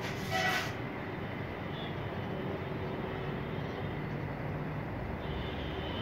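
Steady low background rumble with no distinct events, and a brief scuffing noise about half a second in.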